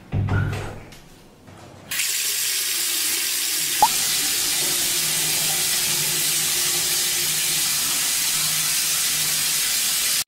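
A bathroom door shuts with a low thump, then about two seconds in a basin mixer tap is turned on and runs steadily into the sink, cutting off suddenly at the end.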